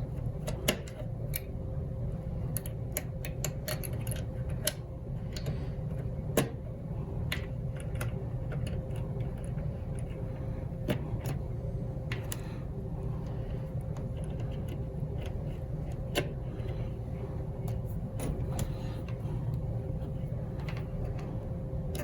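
Scattered small clicks and light knocks of cable connectors being handled and plugged into a circuit board, over a steady low hum.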